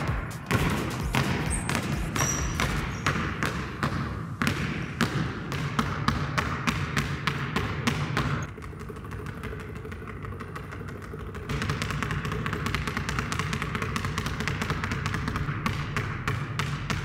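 Two basketballs dribbled at once on a wooden gym floor: a quick, steady run of bounces that turns quieter for a few seconds about halfway through, then picks up again.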